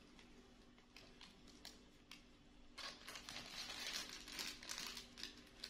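Crinkling and rustling as new clothes are handled, with a few faint clicks at first and a busier run of crackles from about three seconds in.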